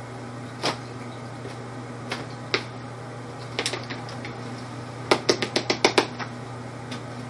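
Sharp clicks and taps from a cat-fishing wand's thin rod knocking against things on the table: a few scattered taps, then a quick run of about eight in a second a little after five seconds in, over a steady low hum.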